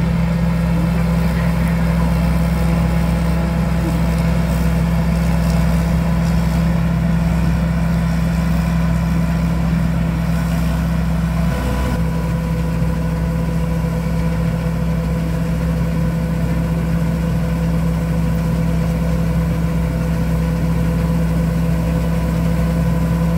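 Rice combine harvester running steadily as it cuts the crop: a pretty noisy, unbroken engine drone with a strong steady hum.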